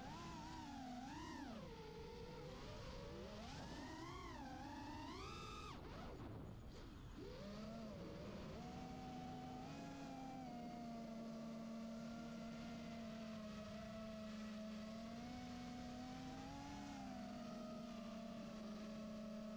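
FPV quadcopter's brushless motors and propellers whining. For the first six seconds the pitch swoops up and down with the throttle, then briefly drops away. After that it holds a steady tone, rising a little near the end.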